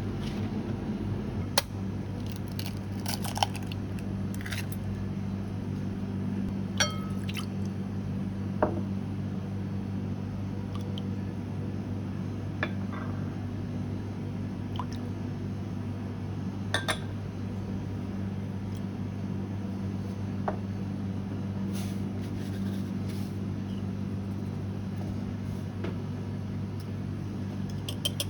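Kitchen prep sounds: scattered light clinks of glass and dishes, with some wet liquid sounds, over a steady low hum.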